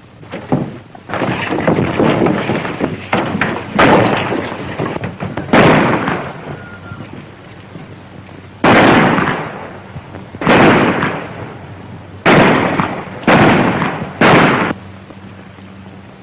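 A fistfight with scuffling and heavy blows for the first several seconds. From about nine seconds in come five sharp gunshots, spaced one to two seconds apart, each ringing out for about a second.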